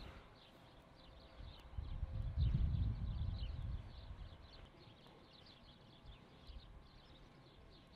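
Small birds chirping over and over at a cattle feedlot, with a louder low rumble of about two seconds beginning a second and a half in.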